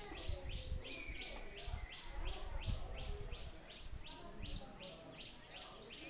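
Sparrows chirping: a steady run of short, high chirps, about three a second, with a second bird joining in overlapping chirps at the start and again near the end, over a low rumble.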